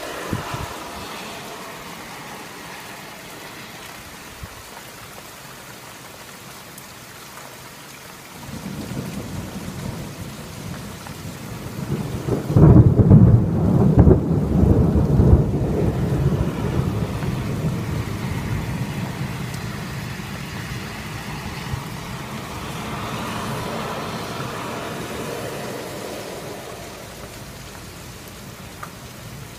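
Steady rain falling, with a long roll of thunder that starts about eight seconds in, builds to a loud rumbling peak near the middle and slowly rolls away.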